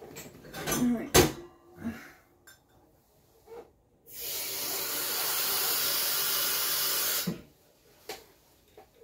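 A few knocks and clunks of handling, then a water tap running in a steady hiss for about three seconds before it is shut off abruptly.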